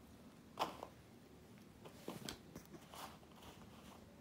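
A few brief, faint rustles and crinkles from handling a kurti as it is laid flat and smoothed out, the loudest about half a second in and others around two and three seconds in.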